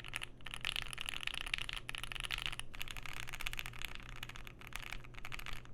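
Fast typing on a Keychron Q1 aluminium mechanical keyboard with lubed and filmed Pinoko linear switches and GMK doubleshot keycaps: a dense run of clacking keystrokes. The case has tape-modded PCB and no poly-fill inside, and no ping is heard by the builder.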